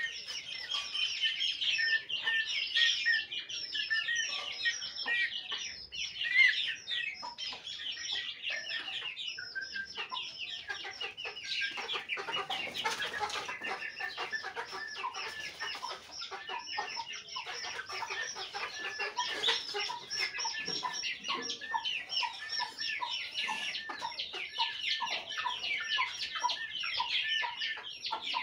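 A flock of Aseel chicks peeping continuously, many thin high cheeps overlapping without a break. In the second half, lower clucks from an adult chicken repeat under the peeping.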